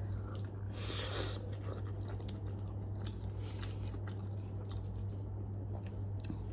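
Person chewing spicy Buldak noodles close to the microphone: wet chewing with many small clicks, and a brief hiss about a second in, over a steady low hum.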